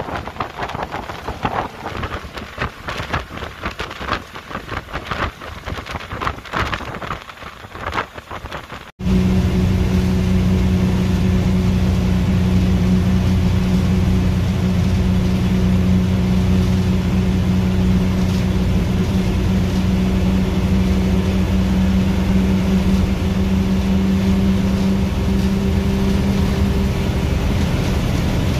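Wind buffeting and road noise at an open window of a moving bus. After a sudden cut about nine seconds in, the steady drone of the bus engine at cruising speed, heard from inside the cabin, with a steady low hum.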